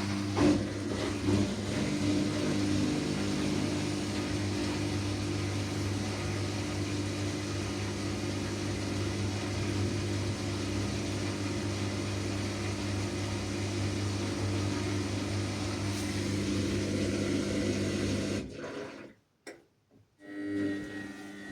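Washing machine running with a steady motor hum under a hiss, cutting out about eighteen seconds in; after a short pause a lower, different hum starts near the end.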